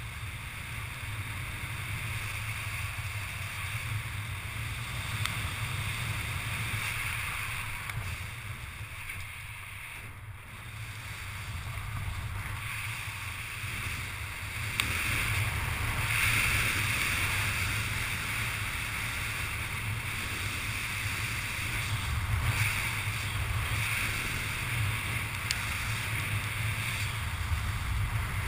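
Steady wind rushing over a helmet-mounted GoPro's microphone during a parachute descent under an open canopy, with a low rumble that grows somewhat louder about halfway through.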